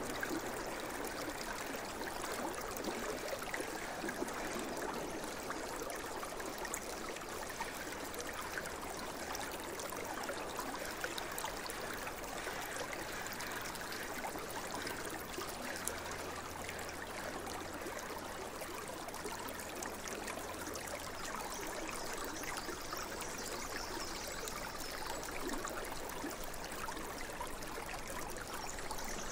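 Steady flowing water, like a stream running and trickling, as a continuous nature sound bed.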